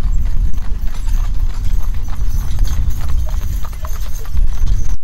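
Hooves of a two-mule team clip-clopping at a walk on a gravel road as they pull a covered wagon past.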